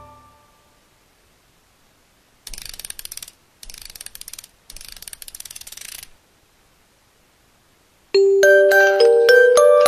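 A background music track fades out, and after a short silence come three bursts of rapid ratchet-like clicking, like a wind-up music box being wound. About eight seconds in, a bright glockenspiel-like music-box melody begins.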